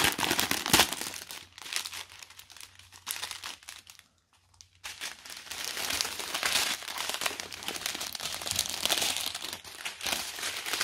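Clear plastic packets of diamond painting rhinestones crinkling as they are unpacked and handled. There is a sharp click just under a second in and a brief pause about four seconds in.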